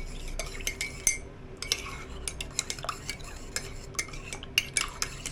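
A spoon stirring a drink in a glass, clinking against the side of the glass several times a second in an uneven rhythm.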